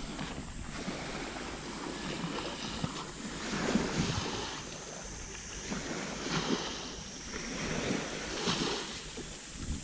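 Small waves washing onto a sandy beach, the wash swelling and easing several times, with some wind on the microphone.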